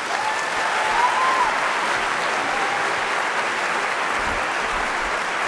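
An auditorium audience applauding steadily, welcoming a speaker to the podium.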